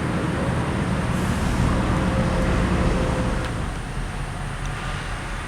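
A heavy engine running steadily with a low hum, which eases off a little about three and a half seconds in.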